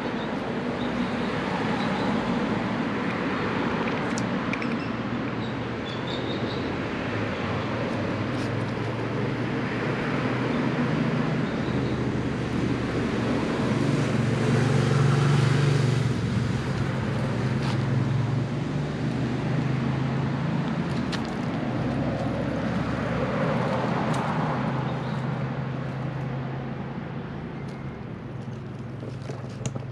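Road traffic noise: a steady wash of vehicle sound that swells around the middle and fades toward the end.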